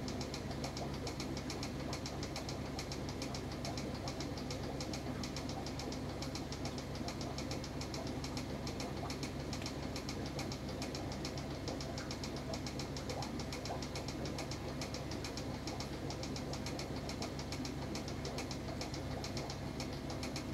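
Aquarium pump running: a steady mechanical hum with a fast, even ticking over it.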